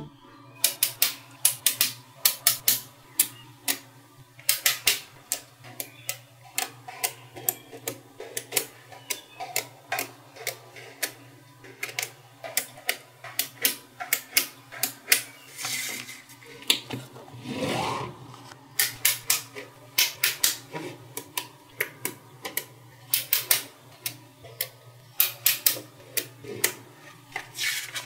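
Small neodymium magnet balls clicking sharply as blocks of them are snapped onto a magnet-ball wall, in irregular bursts of clicks, with a longer rubbing scrape about two-thirds of the way in.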